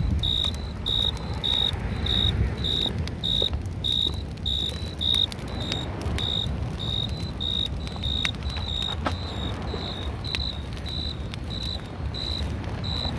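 A cricket chirping steadily, short high chirps about three a second, over a low rumble.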